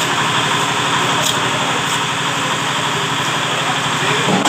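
A small engine running steadily, with an even, rapid chugging.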